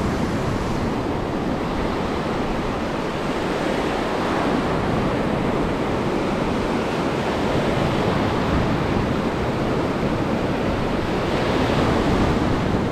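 Ocean surf breaking and washing up onto a beach, a steady rushing wash of noise.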